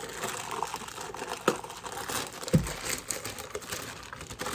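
Plastic packaging crinkling while a set of Speed Stacks sport-stacking cups is handled, with a few sharp clicks and a dull knock about two and a half seconds in.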